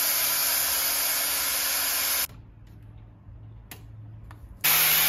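A steady hissing spray that stops abruptly a little over two seconds in, then starts again sharply for a shorter burst near the end.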